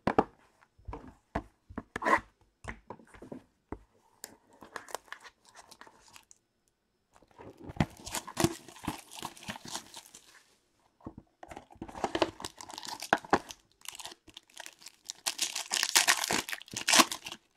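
Hands opening a trading-card box: sharp clicks and knocks from handling the cardboard box, then repeated bursts of tearing and crinkling as its wrapping and the foil pack inside are torn open. The tearing comes in three stretches, loudest near the end.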